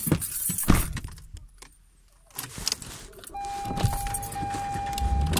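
Keys jangling and knocking, then a little over three seconds in a steady electronic tone starts and holds, with a low rumble joining near the end.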